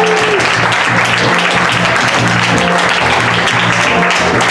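Live theatre audience applauding over music with steady bass notes.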